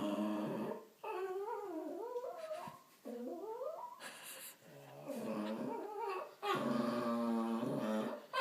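A small dog making a string of drawn-out vocal noises, part growl and part whine. Its pitch wavers up and down and climbs in places, in several bouts with short breaks between them, and the last bout is a long, steady call.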